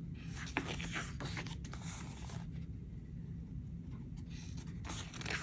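Pages of a glossy album photo book being turned by hand: paper rustling and sliding for the first couple of seconds, then again briefly near the end.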